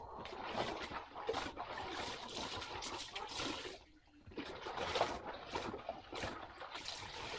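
Water splashing and trickling in irregular surges while laundry is being washed, with a brief lull about four seconds in.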